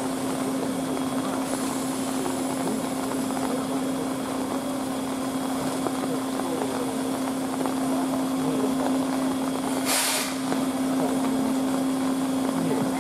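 Steam locomotive D51 498 standing with steam up: a steady hum under a constant hiss of leaking steam. About ten seconds in comes one short, sharp hiss.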